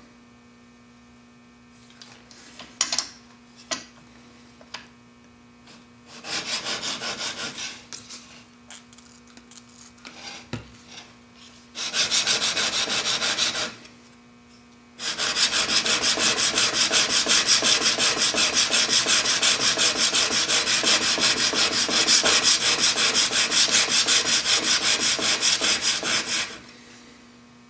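A steel chisel, clamped in a honing jig, is scraped back and forth across an extra-coarse diamond sharpening stone. First come a few light clicks, then short bursts of honing about 6 and 12 seconds in, then a continuous run of quick strokes from about halfway until shortly before the end. This is the grinding of the bevel facet on the extra-coarse stone, working the facet up to the front of the edge.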